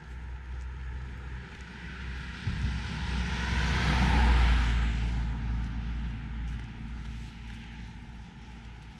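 A vehicle passing by, its noise swelling to a peak about four seconds in and then fading away.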